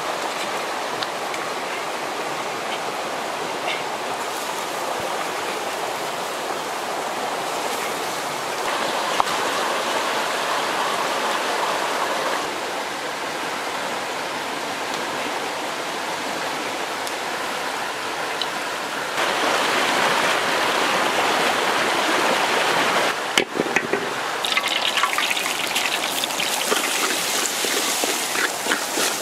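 Steady rush of a shallow river running over rocks. Near the end it gives way to oil sizzling with scattered crackles as chili paste fries in a wok.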